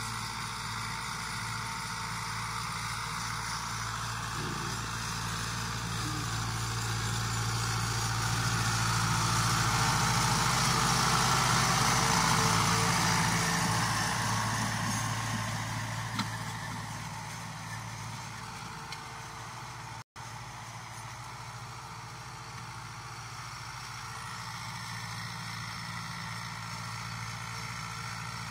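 New Holland Fiat 640 tractor's diesel engine running steadily while it pulls a disc harrow. It grows louder as the tractor passes close by about halfway through, then fades as it moves away. The sound cuts out for a moment about two-thirds of the way through.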